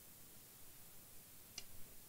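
Near silence: room tone, with one faint click about one and a half seconds in.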